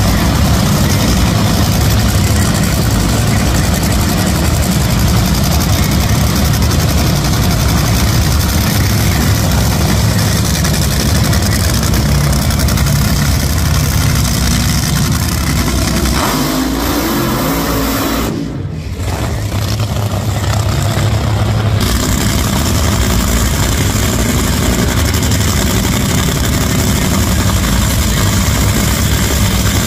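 Top Fuel dragster engines, supercharged nitromethane-burning V8s, running loud at idle after being fire-started. The sound dips briefly and shifts pitch a little past halfway, then carries on steadily.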